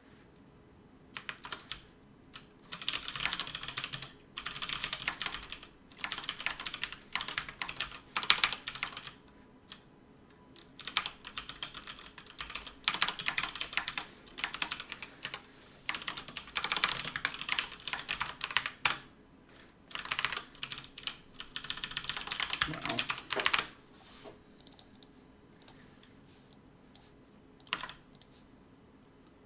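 Fast typing on a computer keyboard in rapid bursts of one to two seconds separated by short pauses, thinning to a few scattered key clicks over the last few seconds, with one louder single click near the end.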